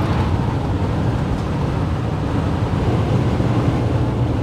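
Steady road and engine rumble of a van cruising on a highway, heard from inside the cab.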